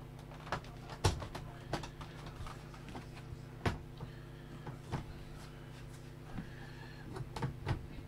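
Plastic casing of an all-in-one PC being pressed and handled during reassembly: scattered sharp clicks and knocks of plastic, the loudest about a second in and a quick cluster near the end, as the case clips are pushed home.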